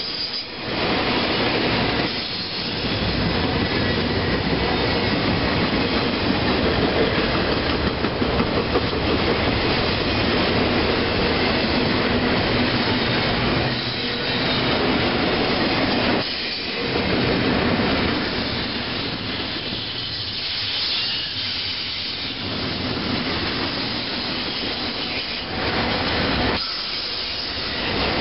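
Norfolk Southern intermodal freight cars rolling past at speed: steel wheels rumbling and clicking over the rails, with a faint high wheel squeal. The noise dips briefly a few times.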